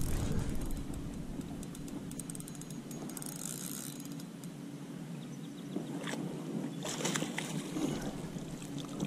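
Small aluminium fishing boat sitting on lightly rippled open water: a steady wash of water and light wind with a faint steady hum under it. A few light knocks come about six and seven seconds in.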